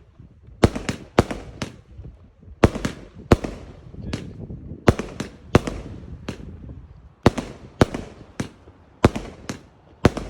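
Fireworks going off: sharp bangs in quick groups of about four, a group every two seconds or so, with crackling hiss between the groups.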